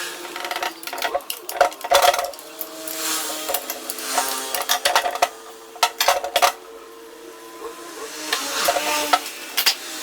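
Metal hand tools and car parts clinking and clattering in irregular sharp knocks, as parts are taken off during repair work.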